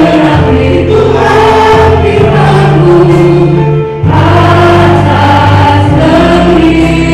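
Christian praise-and-worship song: singers at microphones singing together in held notes over instrumental accompaniment with a steady bass line. There is a short break between phrases about four seconds in.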